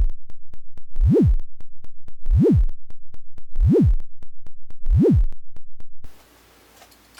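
Modular synthesizer patch: a low oscillator tone that swoops up and back down about every 1.3 seconds under LFO modulation, over a fast, even ticking. It cuts off about six seconds in, leaving faint room tone.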